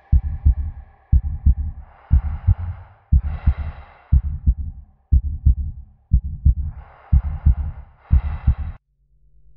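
Heartbeat sound effect, a cluster of low thumps about once a second, with heavy breathing over it: two pairs of deep breaths, in and out. Both stop suddenly near the end.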